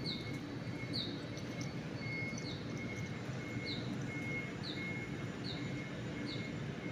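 Fuel pouring in a thin stream from a jug into a new spin-on fuel filter, filling it before fitting, a steady low splashing trickle. A short high chirp repeats about once a second over it.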